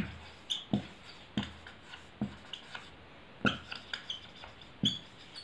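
Marker pen writing on a whiteboard: about a dozen soft, irregular taps and brief squeaks as the tip strokes across the board.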